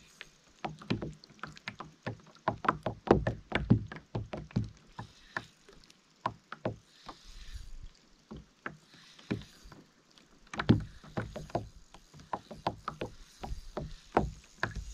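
Irregular knocks and taps against a hollow plastic fishing kayak, several a second in uneven clusters, loudest a few seconds in and again past the middle.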